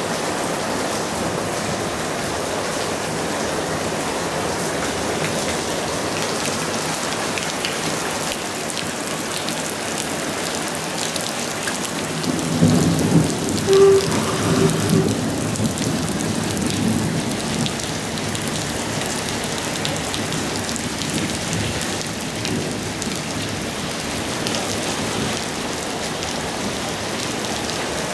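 Steady thunderstorm rain falling on a roof and wet paving. About halfway through, a roll of thunder rumbles for several seconds and then fades.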